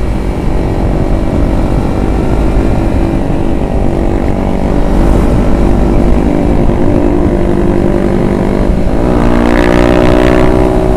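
Kawasaki Ninja 250FI parallel-twin engine running steadily at road speed, with wind rumble on the microphone. About nine seconds in, the engine pitch rises as the bike accelerates.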